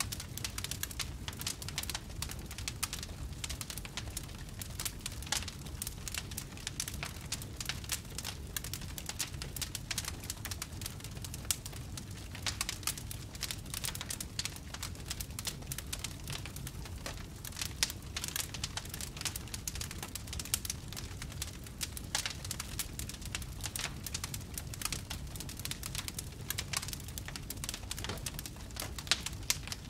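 Wood fire burning in a fireplace: a steady low rumble of flames under a dense run of small crackles, with a few sharper pops now and then.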